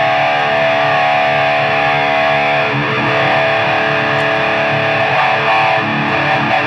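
Distorted electric guitar played through a Cry Baby wah pedal with its boost switched in: a chord held ringing, struck again about three seconds in.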